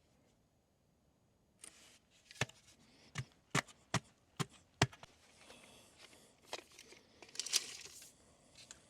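Hand tools being handled against a wooden post while checking level and measuring: a run of about six sharp clicks and knocks, then a scraping rustle near the end.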